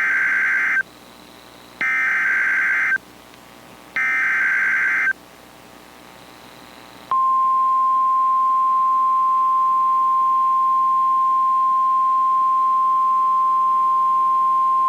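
NOAA Weather Radio Specific Area Message Encoding (SAME) alert header: three buzzy digital data bursts of about a second each, roughly a second apart. About 2 s after the last burst comes the steady single-pitch 1050 Hz Weather Radio warning alarm tone, held for about nine seconds, which signals that a new warning is about to be read.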